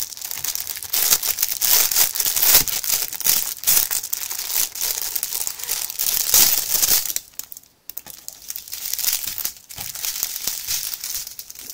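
Clear plastic bag around a strip of diamond-painting drill packets being crinkled and pulled open by hand: dense, crackling plastic noise, broken by a brief pause a little past halfway.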